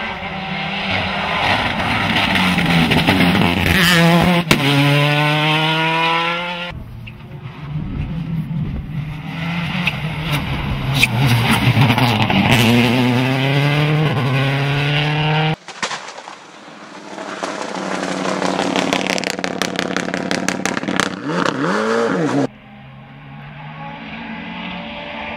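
Rally cars passing at speed one after another, among them a Subaru Impreza WRC with its turbocharged flat-four. Each engine is revved high and then falls in pitch as the car goes by. A run of sharp crackles comes with the third pass.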